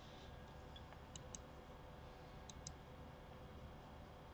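Near silence with faint computer mouse clicks: two quick pairs of short clicks, about a second in and again past two seconds.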